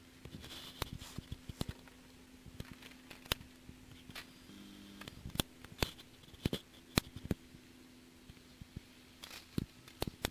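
Irregular sharp clicks and crackles, a dozen or more scattered unevenly, over a faint steady hum.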